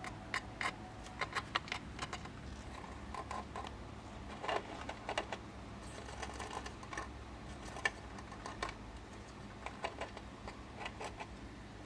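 A hamster moving about in a plastic toy car in its cage: irregular light clicks and taps, often in small clusters, over a steady low hum.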